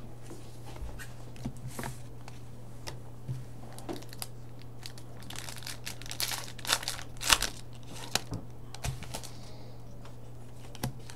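A hockey card pack wrapper being torn open and crinkled, with scattered clicks of cards being handled. The crinkling is loudest in a flurry about six to seven and a half seconds in.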